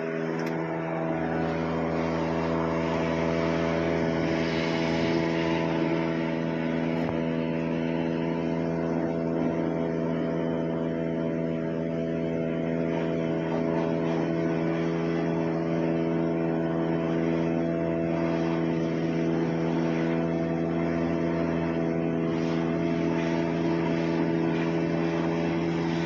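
New Holland T7.210 tractor's six-cylinder diesel running at a steady raised speed, driving a New Holland big baler that runs empty. The steady machine drone comes up within the first second and then holds level.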